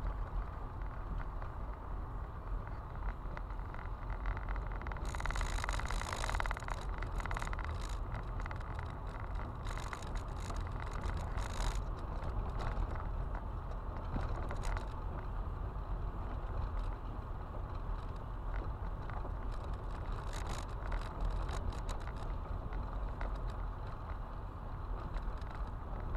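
Car driving on a loose gravel road, heard from inside the cabin: a steady low rumble of tyres on gravel, with bursts of crackling and ticking from stones, heaviest about five to seven seconds in and again around ten to fifteen seconds.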